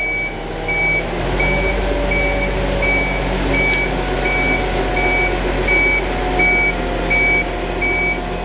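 Concrete mixer truck reversing: its back-up alarm beeps one steady tone at a little under two beeps a second over the running diesel engine.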